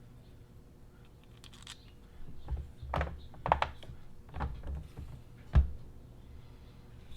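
Clicks and knocks of small plastic RC car parts and tools being handled and fitted together on a workbench: a handful of separate taps, starting about two seconds in, the sharpest near six seconds. A faint steady low hum sits underneath.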